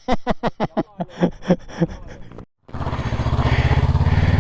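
A run of quick clicks and short voice fragments, then, after a brief break, a motorcycle engine running steadily and getting slightly louder.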